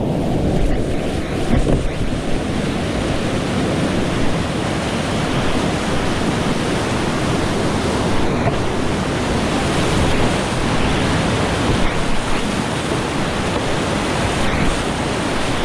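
Steady loud rush of whitewater rapids in a steep mountain creek.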